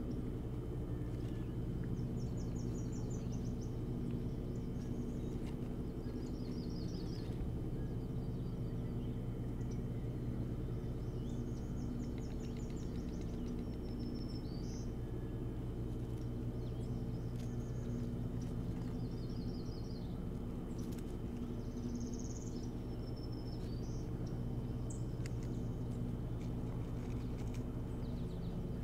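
Small birds singing in the background, short high trills and chirps every few seconds, over a steady low hum.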